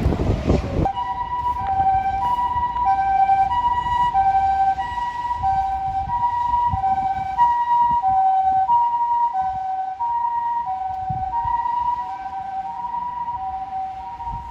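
Japanese ambulance siren sounding its two-tone hi-lo wail, alternating evenly between a higher and a lower pitch. It comes in suddenly about a second in over low road rumble.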